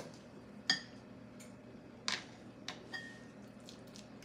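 A utensil clinking and scraping against a glass mixing bowl while stirring thick egg-yolk filling. There are a few sharp clinks with a short glassy ring: one under a second in, the loudest just after two seconds, and two more close together about a second later, with soft ticks between.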